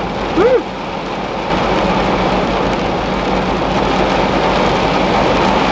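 Steady rain on the roof of a parked car, heard from inside the cabin; it gets abruptly louder about a second and a half in.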